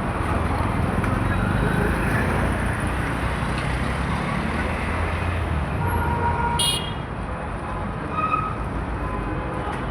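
Busy road traffic: vehicle engines and tyres passing in a steady rumble, with short horn toots. One brief sharp high toot comes about two-thirds of the way through, and after it the rumble eases a little.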